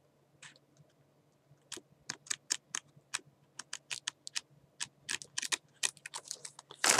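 Pages of a small scrapbook paper pad flicked one at a time off the thumb, making a quick run of light clicks, about five a second, that starts a couple of seconds in.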